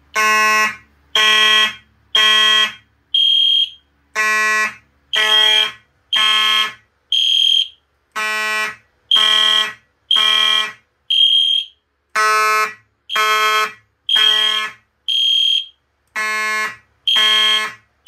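Simplex 2901-9838 mechanical horn and EST Genesis ceiling-mount horn strobe sounding together in a fire alarm test. The mechanical horn gives loud buzzy blasts about once a second in code 3, three blasts then a gap, while the Genesis adds a higher electronic tone that pulses along with it and sounds alone in the gaps.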